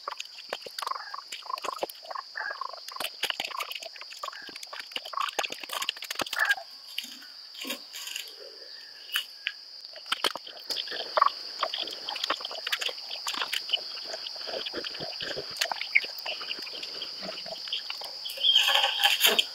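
Small wood cooking fire crackling with many irregular snaps and clicks while it is stoked and poked, over a steady high-pitched drone.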